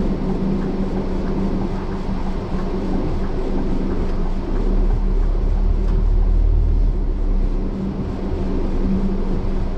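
Hired coach running on the road, heard from on board: a steady engine hum with road noise. A deeper rumble swells for about three seconds in the middle.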